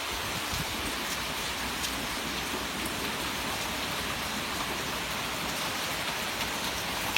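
Heavy rain falling steadily, an even hiss with scattered individual drop hits.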